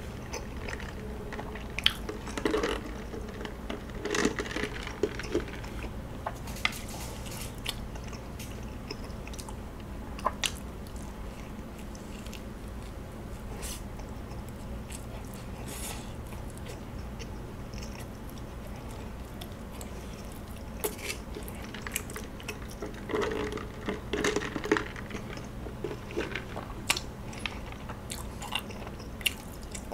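Close-miked eating of kaya toast: crisp buttered toast being bitten into and chewed, with crunching and small wet mouth clicks. The sounds come in scattered bursts, busiest a few seconds in and again after about twenty seconds.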